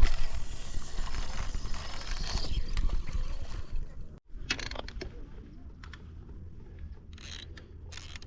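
Fishing reel clicking and ratcheting, a fast run of small mechanical clicks. It is loudest over the first few seconds, cuts out sharply about four seconds in, then returns fainter.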